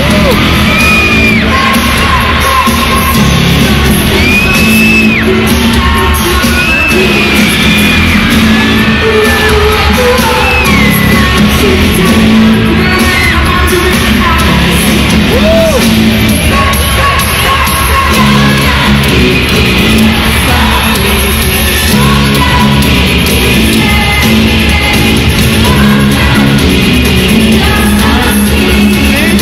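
Live rock music at concert volume, heard from among the audience in an arena, with singing and shouts over the band.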